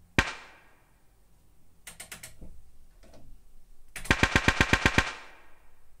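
Synthesized assault-rifle sound effect, built in the Serum synth with Logic Pro X stock plugins: a single shot with a reverberant tail, a few faint shots about two seconds in, then a fully automatic burst of about ten rounds in one second about four seconds in, each shot trailing off in reverb.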